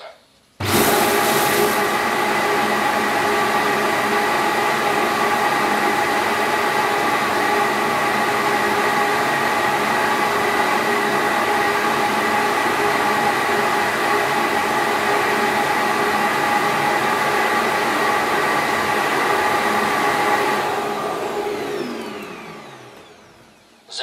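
Liectroux G7 self-emptying dock's suction motor starting abruptly and running steadily with a high whine as it sucks the debris out of the docked robot vacuum's dustbin. After about twenty seconds it shuts off and winds down, its pitch falling as it fades out.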